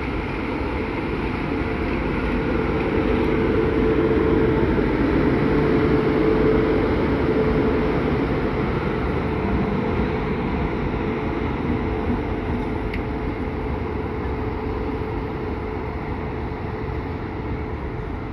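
WAP-7 electric locomotive hauling an express train past at speed: a steady rumble of wheels on rail that swells to its loudest about a quarter of the way in as the locomotive goes by, then carries on as the coaches roll past.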